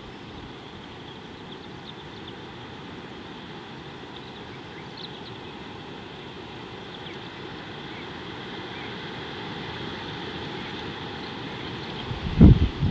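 Steady wind rumbling on the microphone of an outdoor camera, with a faint high hum and a few short high chirps. Near the end, a strong gust buffets the microphone once.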